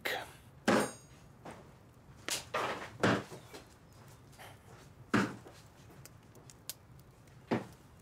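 A few scattered knocks and clatters at irregular intervals, with a couple of faint clicks near the end.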